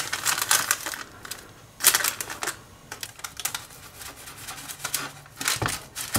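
A knife cutting through the crisp, browned crust of a pan-baked flatbread: irregular crackling and crunching, with louder crunches about two seconds in and near the end.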